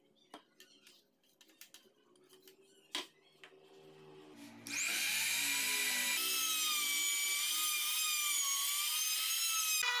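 Light handling clicks and knocks as a compact trim router is set on a routing template. About halfway through, the router is switched on, spins up quickly and runs with a loud, steady high whine. It is routing a recess for a flush door handle into the wood, and its pitch wavers slightly under the cut.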